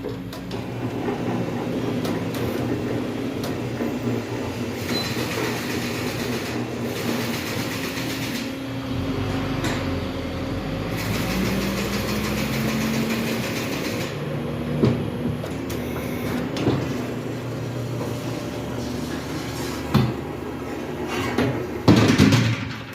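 Tyre changer machine running as the old tyre's back bead is worked off the rim: a steady mechanical drone with shifting tones, stretches of hiss, and a few knocks, the loudest near the end.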